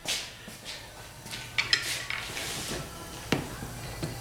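A thread tap being turned by hand in a hole in metal plate: light metallic clicks and scraping, with a few sharper clicks partway through and a louder one about three seconds in.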